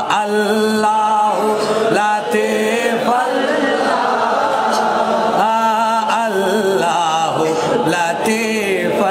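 Sufiyana kalam, a Sufi devotional chant, sung by a male voice in long held notes that waver and glide in pitch, with a steady low tone underneath.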